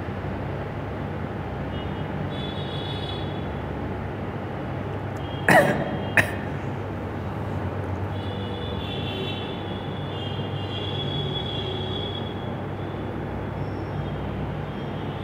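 Steady low hum with a constant background noise, broken about five and a half seconds in by two short sharp sounds half a second apart, the first with a falling pitch.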